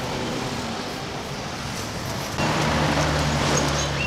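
Street traffic: a steady hum of passing cars and motorbikes. About two and a half seconds in, a louder, steady engine hum with a hiss comes in.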